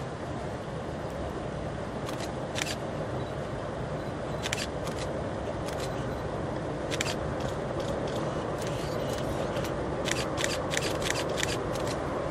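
Train rolling past: a steady rumble with scattered sharp clicks, growing slightly louder toward the end.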